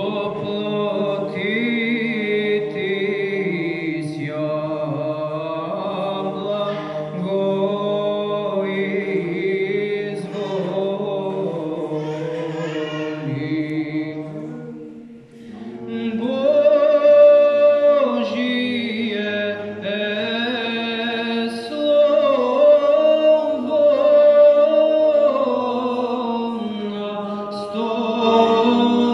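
Male Byzantine Orthodox church choir chanting a cappella: a melody sung over a held low drone (the ison). There is a short break about halfway through, and the next phrase comes in louder.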